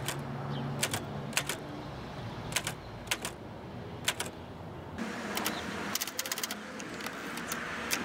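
Sample typing on a 1957 Rheinmetall KsT portable typewriter: separate sharp type-bar clacks at an uneven, unhurried pace, coming closer together in the last few seconds.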